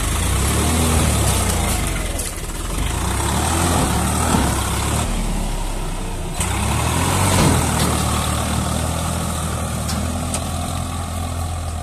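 Tractor diesel engine working hard under heavy load, struggling to pull a loaded trolley through deep mud. It runs with a steady low rumble, and the revs swell twice, about four and seven and a half seconds in.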